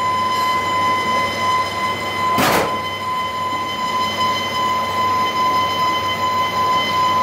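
Wheeled excavator's engine running steadily with a constant high-pitched whine over it, and a brief loud burst of noise about two and a half seconds in.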